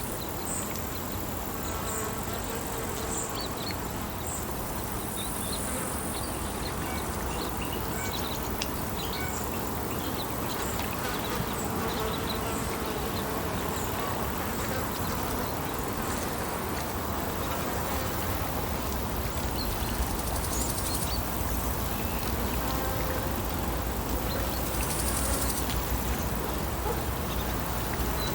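Lakeside outdoor ambience: a steady buzz of insects, with scattered short high chirps and a low rumble underneath.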